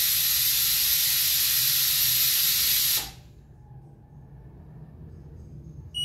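Compressed air hissing out of a tyre through a digital tyre inflator's hose as the inflator deflates the tyre to a preset pressure. The hiss cuts off suddenly about three seconds in, and an electronic beep starts right at the end.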